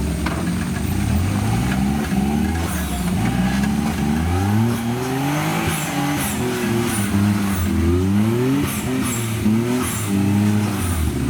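Engine of a Suzuki Jimny-based off-road trial machine revving up and down again and again in short rising blips of throttle, with sharp clicks scattered through the second half.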